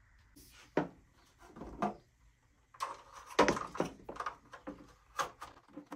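Handling noise from a Festool CT Mini extractor's plastic housing and power cord being moved about: scattered knocks, clicks and rubbing, busiest about three seconds in.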